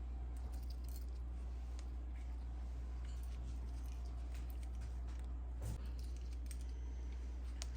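A steady low hum with faint, scattered light clicks and taps over it.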